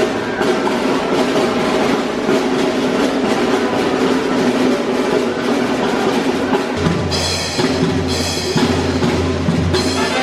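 Music with a drum kit keeping a steady beat; a deep bass line and bright high parts come in about seven seconds in.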